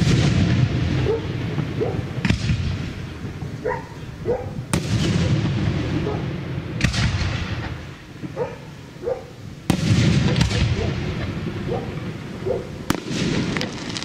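Aerial firework shells bursting in a display: about seven sharp bangs a couple of seconds apart, each followed by a rolling, echoing rumble, with a burst of crackling near the end.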